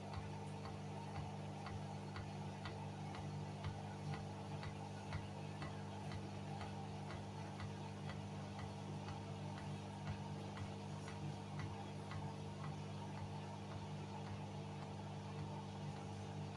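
Hoover washing machine running with a steady hum and a regular light ticking, about two ticks a second, that fades out near the end.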